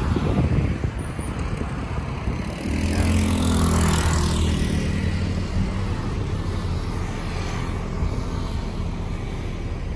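Road traffic on a street: a motor vehicle's engine hum swells about three seconds in and fades over the following seconds, over a steady traffic rumble.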